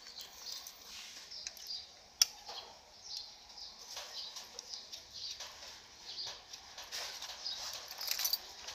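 Scraping, rubbing and light metallic clinks as worn drum brake shoes and their spring hardware are handled and wiped with a rag, with one sharp click about two seconds in.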